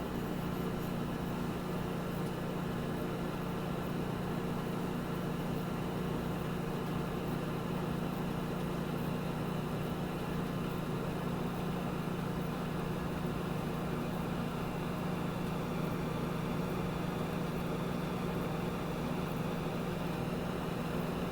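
Very old microwave oven running: a steady, unchanging electrical hum.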